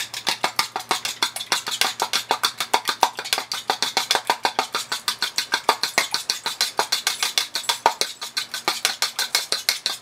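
Metal fork beating a raw egg in a ceramic bowl: rapid, even clicking of the tines against the bowl, about eight strokes a second.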